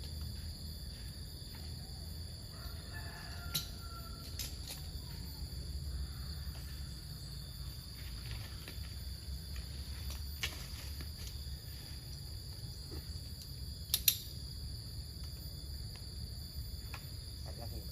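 Insects chirring steadily at a high pitch over a low rumble, with a few sharp clicks, two of them about 3.5 and 14 seconds in.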